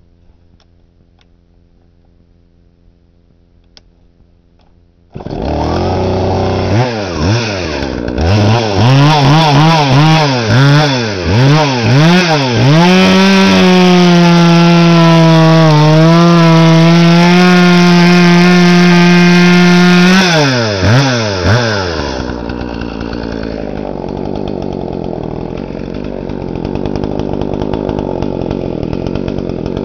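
Husqvarna 41 two-stroke chainsaw starting about five seconds in, revved up and down several times, then held at high revs for several seconds while cutting through a log. It drops back about twenty seconds in and idles unevenly.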